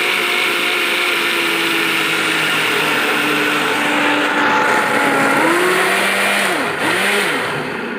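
Electric mixer grinder (mixie) running steadily, its motor grinding a soap paste; the motor pitch dips and swings in the last couple of seconds.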